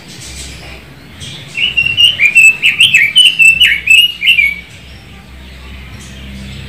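Red-billed leiothrix (Pekin robin) singing one quick warbling phrase of rising and falling notes, about three seconds long, starting about a second and a half in.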